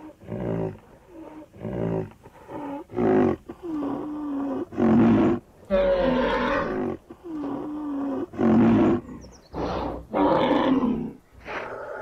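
Rhinoceros calling: a string of about a dozen loud calls, some short and some drawn out, with brief pauses between them.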